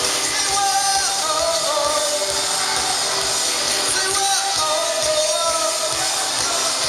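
Live rock band playing, with singing over it.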